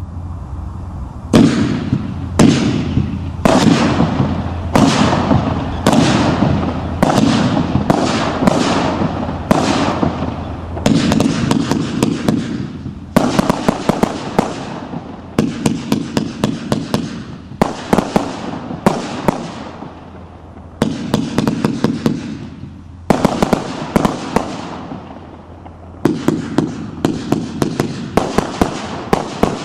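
888 Blue Paradise 49-shot firework cake firing shot after shot, each a sharp bang followed by fading noise. The shots come about a second apart at first and more spread out later, with many sharp crackles between them in the second half.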